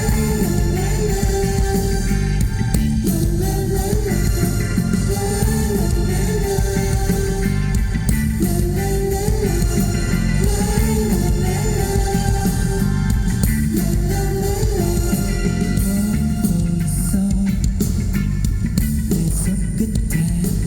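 Live rock band playing loudly, a short melody repeating every couple of seconds over a dense band backing.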